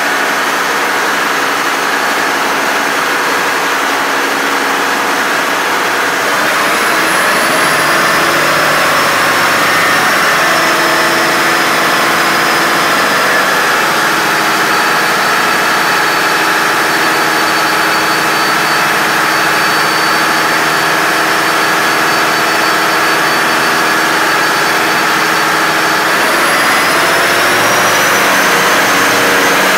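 Volvo Penta D13 inline-six marine diesel engines running under test, loud in the engine room. About six seconds in, engine speed rises with a high whine climbing, then holds and eases a little. Near the end it climbs again.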